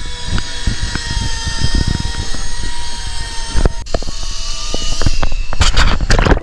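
A steady motor whine at several pitches over wind rumbling on the microphone. After a cut a little before halfway, one tone rises. Near the end come a few sharp noisy splashes as the camera meets the water.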